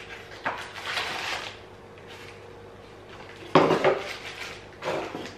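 Handling noise as a brass candle holder is unpacked from its small cardboard box and plastic wrapping: rustling with light clinks of the metal parts, in a few short bursts, the loudest about three and a half seconds in.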